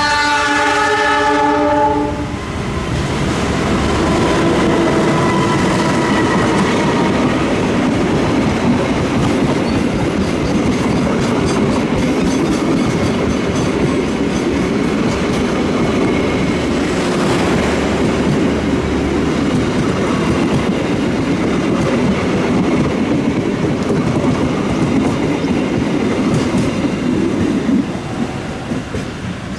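A CC 206 diesel-electric locomotive sounds its horn in one blast of about two seconds. A train of passenger coaches then rolls past close by, giving a steady rumble and clickety-clack of wheels over the rails, which drops off near the end.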